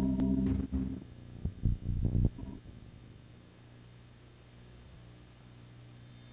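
Synthesizer-like music played back from a homemade VHS tape loop's audio track through a VCR. About a second in it breaks into choppy fragments, then drops out by about two and a half seconds, leaving a faint steady low hum.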